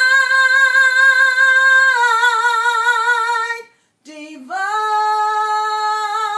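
A woman singing a cappella, holding two long high notes with vibrato, with a short break for breath about four seconds in.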